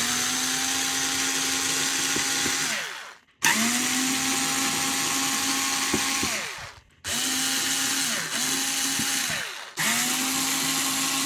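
Bosch cordless screwdriver running in about five separate runs, the first two about three seconds long and the rest shorter, each winding up to a steady whine and dropping in pitch as it stops. It is backing out long Torx screws from a plastic speaker housing.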